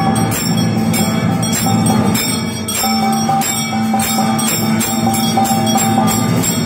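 Temple bells rung rapidly during aarti, the lamp-waving offering to the deity, several sharp strikes a second over a steady musical drone.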